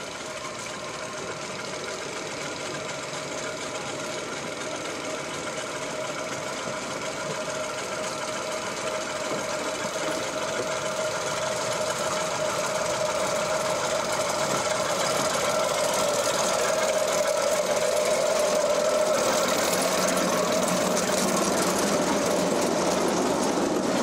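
Diesel locomotive engine running with a steady tone, growing steadily louder as it draws closer.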